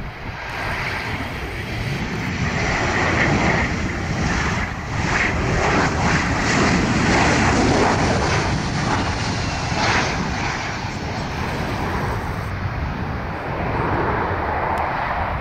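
Jet engine noise of a Boeing 737-800 airliner landing: the CFM56-7B turbofans' roar builds as it passes close on final approach and touches down, peaking about halfway and easing only a little afterwards.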